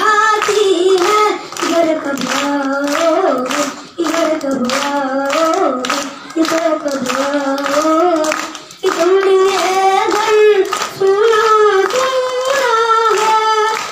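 A young boy singing a slow, wavering melody unaccompanied through a handheld microphone, with steady hand claps keeping time.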